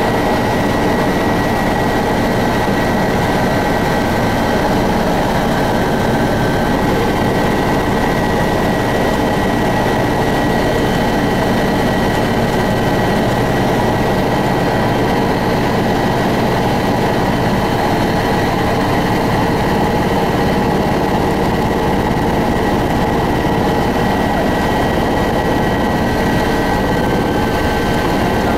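Helicopter cabin noise in flight: a loud, steady drone of engine and rotor with a thin, high, steady whine over it.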